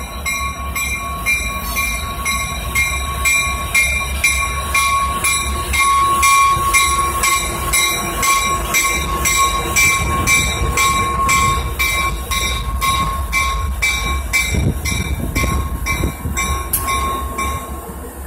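Diesel locomotive's bell ringing steadily, about two strokes a second, over the low rumble of the locomotive as it moves slowly past.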